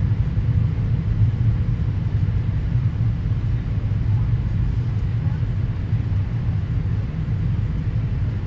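Steady low rumble of airliner cabin noise during the descent to landing: engines and rushing air heard from inside the passenger cabin.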